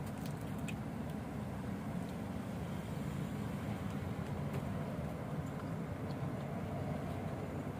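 Steady low rumble of city road traffic, with a few faint clicks over it.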